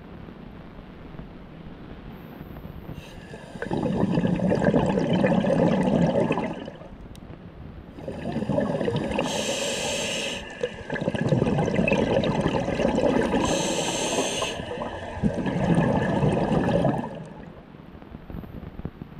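Scuba diver breathing through a regulator underwater: four long, noisy rushes of exhaled bubbles a few seconds each, starting a few seconds in, with a higher hiss during two of them.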